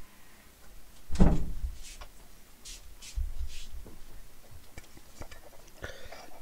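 A heavy thump about a second in, then scattered knocks and sharper clinks of a metal rice bowl and spoon as a person settles back at the table and scoops rice.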